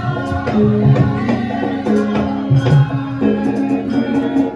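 Javanese gamelan music accompanying a Wonosobo lengger dance: sustained pitched tones repeat in a regular cycle under steady hand drumming and gong strokes.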